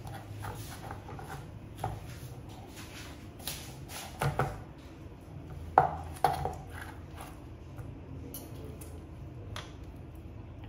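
Knife and fork clicking and scraping against a plastic cutting board while cutting up a piece of fried chicken, with a few sharper knocks about four and six seconds in, over a low steady hum.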